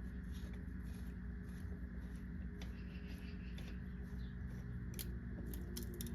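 Faint scattered metallic clicks as a cylinder head bolt is threaded in by hand, over a steady low background hum; the clicks come more often near the end.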